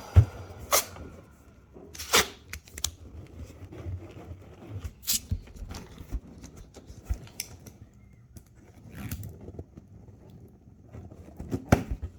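Balloons being handled: irregular rubbery rubs, scrapes and sharp snaps, with the loudest clicks about a quarter second in and again near the end.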